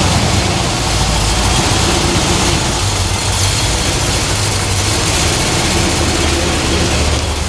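The 1970 Chevrolet Corvette C3's 350 cu in small-block V8 running steadily: an even low drone under a broad hiss.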